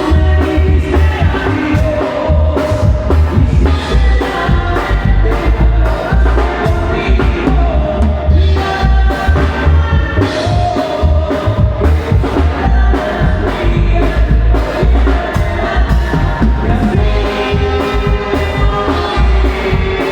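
Live band playing tierra caliente music loud through a PA, with a heavy pulsing bass and drums under the melody and a voice singing at times.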